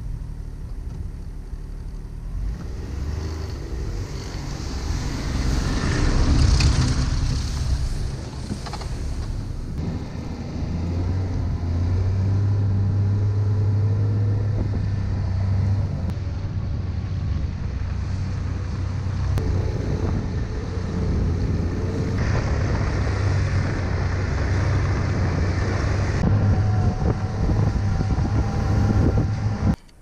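Ski-Doo Skandic SWT snowmobile's 900 ACE three-cylinder four-stroke engine pulling away under the load of two towed sleds. It grows louder over the first few seconds, then runs steadily at cruising speed across the snow, with some wind noise on the microphone.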